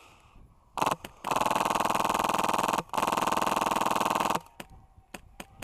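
Airsoft rifle firing on full auto: two long bursts of about a second and a half each, with a short break between them and a brief blip just before.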